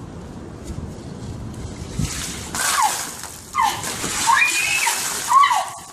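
Buckets of ice water dumped over a person's head, splashing and sloshing from about two seconds in until near the end. Several high-pitched cries from the drenched person come over the splashing.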